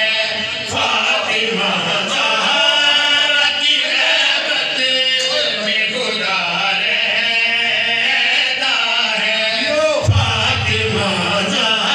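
A man chanting a devotional qasida in long melodic phrases, unaccompanied, through a microphone, with other men's voices joining in.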